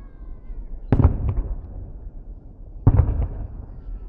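Fireworks salute shells bursting: two heavy bangs about two seconds apart, each followed by a rolling echo and a few smaller cracks.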